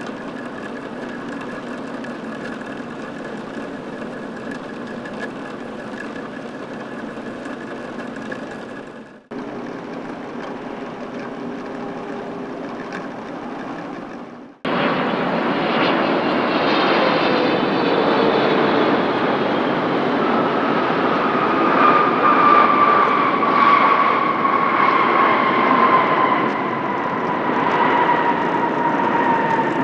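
Steady jet-engine noise from an Airbus A321neo, broken by two abrupt cuts. About halfway in it gives way to the much louder sound of a Boeing 777-300ER's GE90 turbofans at takeoff power. Their whine falls slowly in pitch as the jet passes and draws away.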